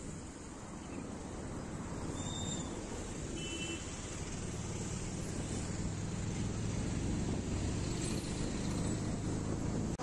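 Road traffic heard from a motorcycle moving slowly among cars and a fuel tanker truck: a low engine drone under a noisy hiss, growing gradually louder and steadier from about halfway through.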